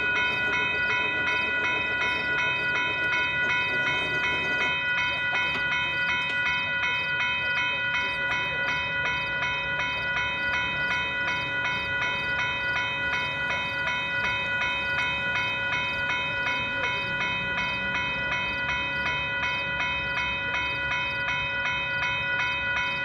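Railroad grade-crossing warning bells ringing in rapid, even strokes at a steady level, signalling an approaching train.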